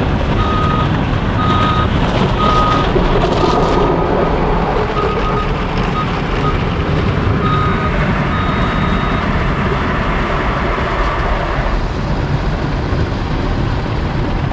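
A car's parking sensor beeping in repeated short tones, set off by the car wash equipment close to the front of the car, over the steady rushing noise of an automatic car wash. The beeps speed up briefly in the middle and stop about nine seconds in, while the rush goes on.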